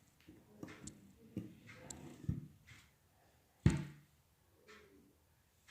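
Handling knocks and clunks, likely from a homemade drill-press vise being moved and worked, with one sharp knock about three and a half seconds in.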